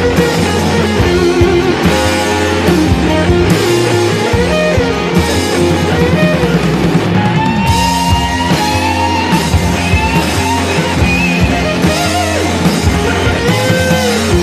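Background rock music with electric guitar and a drum kit.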